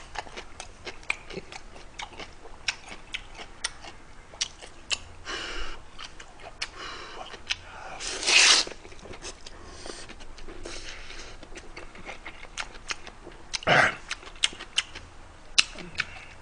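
Close-miked eating of beef noodle soup: wet chewing and lip-smacking clicks throughout, with a loud slurp of noodles about eight seconds in.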